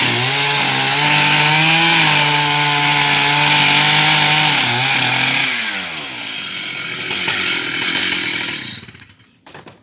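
Stihl MS 880 two-stroke chainsaw running at full throttle, cutting into an ash tree; about five seconds in the revs fall, and near the end the saw stops suddenly, followed by a couple of short knocks.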